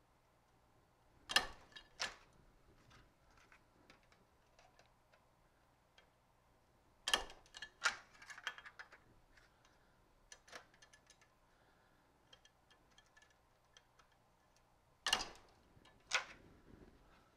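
Hand-lever sheet metal punch, mounted in a vise, punching holes through a sheet-metal blank: three pairs of sharp metallic clicks, about a second in, about seven seconds in and near the end. Light clinks of the sheet being handled come between them.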